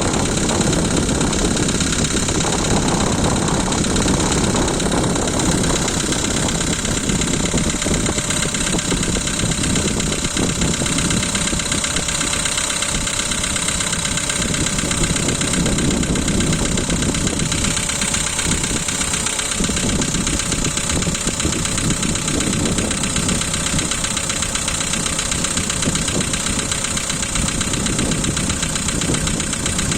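A Volkswagen Polo's 1.6-litre CFNA four-cylinder petrol engine idling after a cold start, with a steady rapid tapping knock. The mechanic puts it down to the hydraulic lash adjusters: one slapping hard, a couple slightly.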